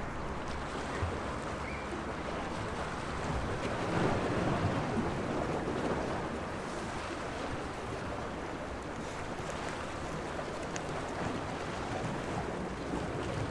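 Small sea waves washing against the waterfront, a steady wash of water that swells louder about four seconds in.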